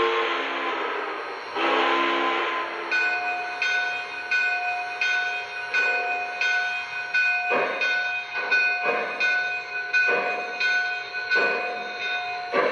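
O gauge model steam locomotive's onboard sound system: two blasts of a chime steam whistle with hiss, then a bell ringing steadily as the chuffing starts. The chuffs come about two a second and grow stronger about halfway through as the locomotive pulls away.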